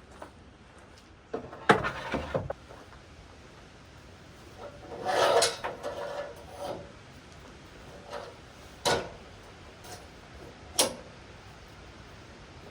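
Several separate knocks and clunks, with a longer scraping rub about five seconds in, then two more sharp knocks.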